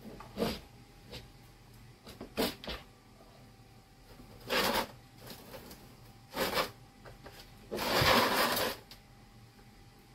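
Parts and wiring being handled on a workbench: a string of short knocks and rustles, with the longest and loudest rustle near the end.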